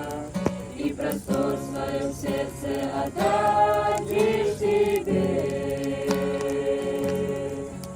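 A group of voices singing a Russian Christian hymn together, holding long notes that change pitch every second or so.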